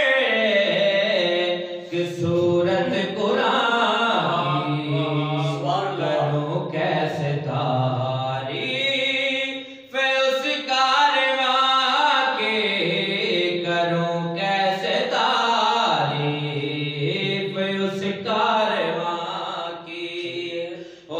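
A man's voice reciting an Urdu qaseeda (manqabat) in long, melodic chanted phrases into a microphone, with a short breath break about ten seconds in.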